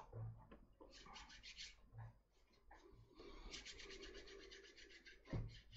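Faint, quick rasping of palms being rubbed together, in short spells of rapid back-and-forth strokes, with a single sharp thump a little over five seconds in.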